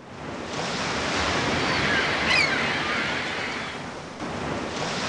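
Ocean surf washing onto a beach, swelling to a peak about two seconds in, easing off, then swelling again near the end, with a few short high chirps over it.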